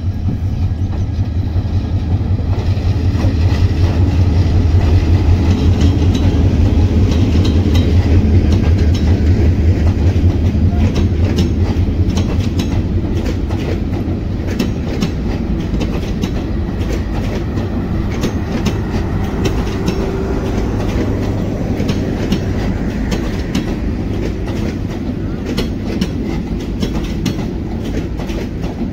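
A diesel locomotive passes close with a loud, low engine drone. Its long train of passenger coaches then rolls by, the wheels clattering steadily over the rail joints.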